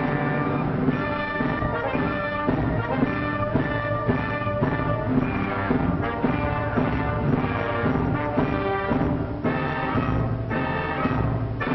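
Orchestral music with brass, played with strong accented beats about twice a second.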